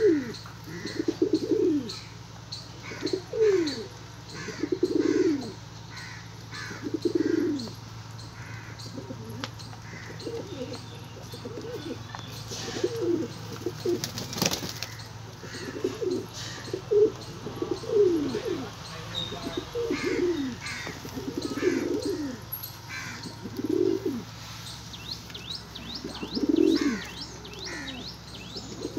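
A flock of domestic highflier pigeons cooing over and over, a low falling coo every second or two, with a brief noise about halfway through.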